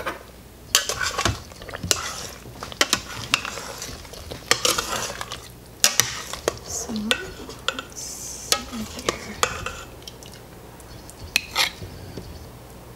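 Metal serving spoon stirring in a stainless steel Instant Pot inner pot, with irregular scrapes and clinks against the pot's sides. The clinks are dense at first and thin out to a few in the second half.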